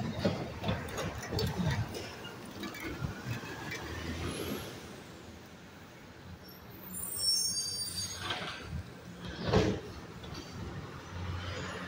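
Garbage truck rolling slowly and pulling up at the curb. A high brake squeal comes about seven seconds in and a sharp burst of air-brake hiss about two seconds later, then the engine idles steadily.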